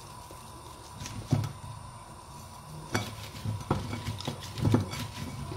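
Raw fennel quarters being handled and rubbed with salt on a ceramic plate: scattered light knocks of the pieces and fingers against the plate, with soft rubbing between them.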